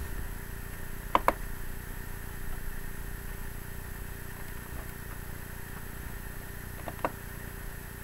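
Steady low background hum of room and computer noise, with a pair of quick clicks a little over a second in and one more click near the end.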